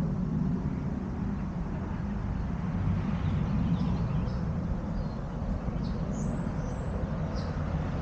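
Countryside outdoor ambience: a steady low rumble with a few faint, high bird chirps, most of them near the end.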